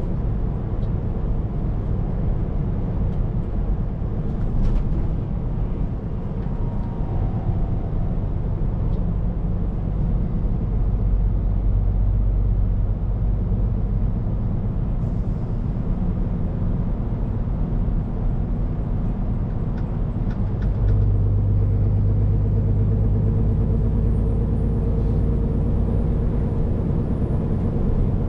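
Scania P410 truck's diesel engine running on the road, heard inside the cab, with a steady low rumble of engine and tyres. The engine note grows louder about three-quarters of the way through.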